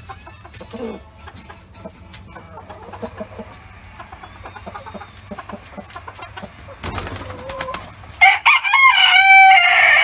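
Chickens clucking softly, then about eight seconds in a bantam rooster crows loudly once, a cock-a-doodle-doo lasting about two seconds.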